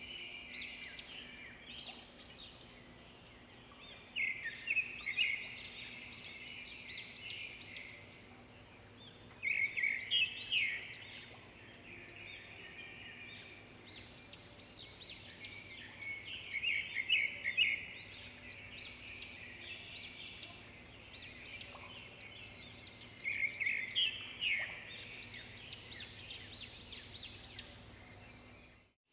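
Songbirds chirping and singing in quick bursts of high notes, phrase after phrase with several louder flurries, over a faint steady hum. The sound cuts out briefly at the very end.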